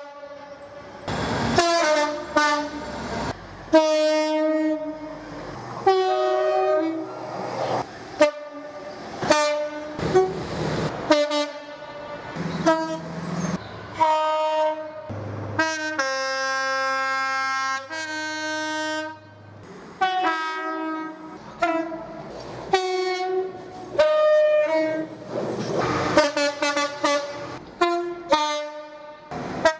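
Train horns sounding a rapid series of short blasts that step between two or more pitches, with one longer chord-like blast held for about two and a half seconds about halfway through.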